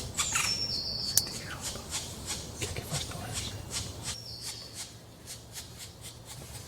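Forest ambience with a high thin bird call heard twice, each a short whistled note stepping down in pitch, over scattered light clicks and ticks.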